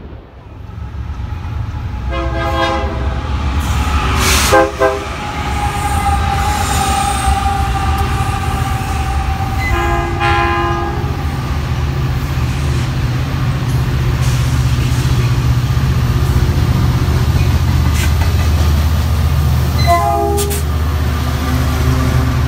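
Diesel locomotive's multi-chime air horn sounding four separate blasts, the last near the end, over the deep rumble of the locomotive's diesel engine, which grows louder over the first few seconds and then holds steady as the train comes close.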